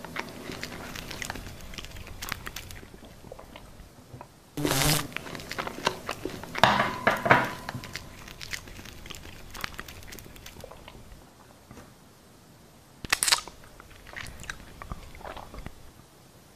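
Close-up ASMR eating sounds: crisp crunching bites and chewing, with louder crunches about five, seven and thirteen seconds in.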